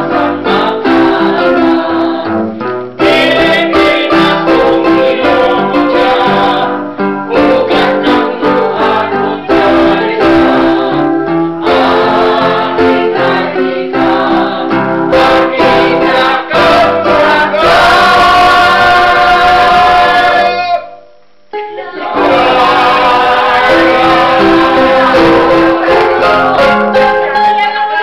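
A small amateur choir, mostly women, singing together with electronic keyboard accompaniment. They hold a long note, break off for about a second about three-quarters of the way through, then sing on.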